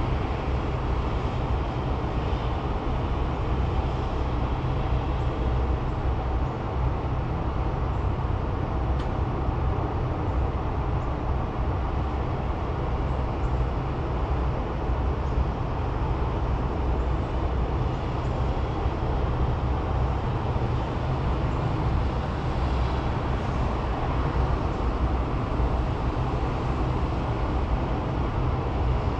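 Steady low rumbling background noise with no distinct events, heaviest in the low end.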